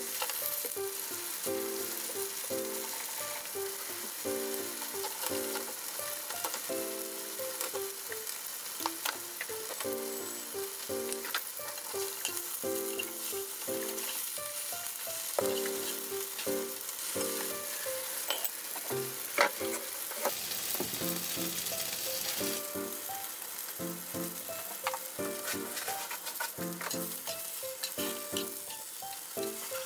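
Tofu cubes sizzling steadily as they shallow-fry in oil in a frying pan, with scattered clicks of a spatula and chopsticks turning them. Soft background music with short melodic notes plays along.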